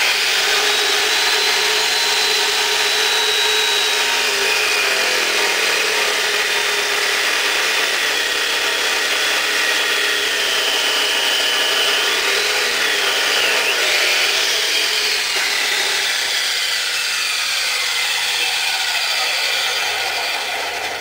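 Abrasive chop saw, its blade worn, spinning up and cutting through a steel steering shaft. A steady grinding whine runs throughout, its pitch sagging and wavering as the blade bites, then the saw winds down near the end.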